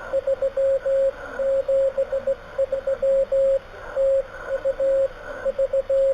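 Morse code (CW) on a ham radio: a single steady beep keyed on and off in short and long marks, dots and dashes, sent at a slow speed, over a hiss of band noise.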